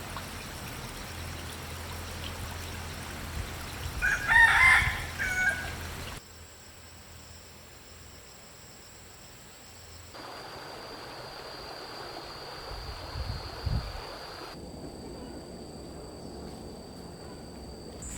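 A rooster crowing once, a loud call of about two seconds that starts about four seconds in, over a steady background hiss.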